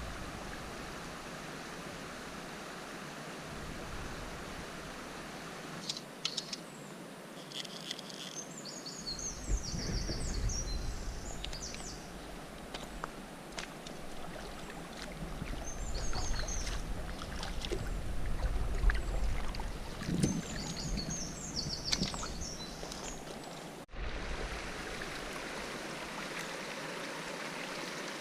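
Steady rush of flowing river water, with a small songbird twittering in short high phrases three times and bouts of low rumble underneath.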